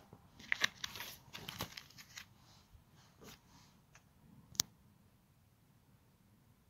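Plastic comic-book sleeves crinkling and clicking as they are handled. There is a quick cluster of crackles in the first two seconds and a single sharp click about four and a half seconds in.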